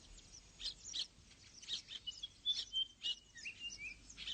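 African weaver birds chirping, several short sharp chirps a second, with a run of thin whistled notes, some sliding, about halfway through.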